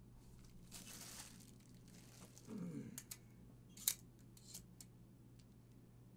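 Faint rustle and crinkle of plastic wrap on a heavy bronze door shoe as it is handled, with a few light clicks and taps, the sharpest about four seconds in, as a tape measure is set against the metal.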